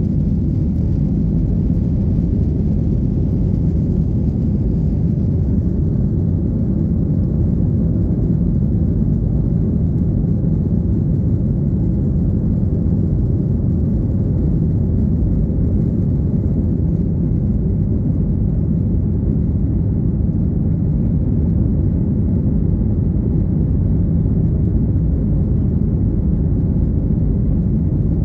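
Jet airliner cabin noise during the climb after takeoff: the engines and airflow make a steady, deep rumble, heard from inside the cabin.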